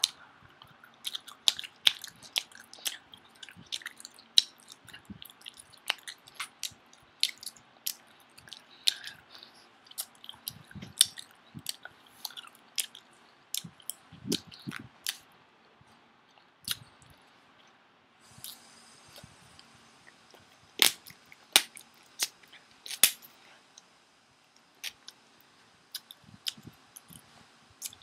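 Someone chewing gum noisily with the mouth open: a rapid, irregular run of sharp wet clicks, thinning out with short pauses in the last third.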